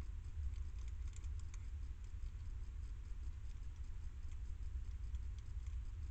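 A hedgehog eating from a metal dish: faint small clicks and crunches of chewing, a cluster of them about a second in, over a steady low rumble.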